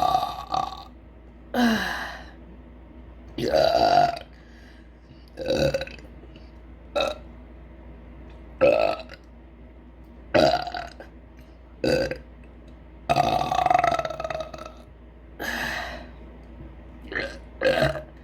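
A woman burping again and again, about a dozen belches one to two seconds apart. Most are short, with a longer drawn-out one about two thirds of the way through.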